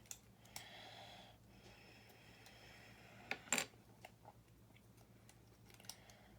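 Plastic building bricks being handled on a desk: faint clicks and rattles, with one sharper click about three and a half seconds in.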